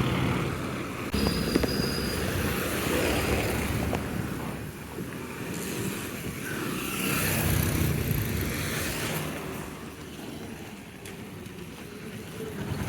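Road vehicle noise: a low engine rumble with a rushing haze that swells and fades twice, growing quieter near the end.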